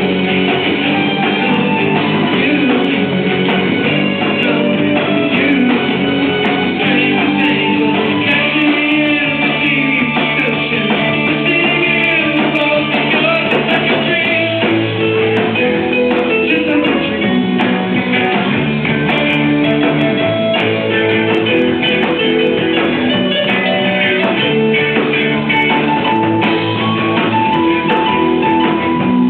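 Loud rock music with guitars, bass and drums, and some singing.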